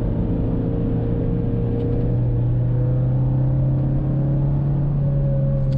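Toyota MR2 Mk1 (AW11) running on the road, heard from inside the cabin: a steady mid-mounted engine note over road rumble. The engine's pitch rises slightly about two seconds in and keeps creeping up as the car gently gains speed.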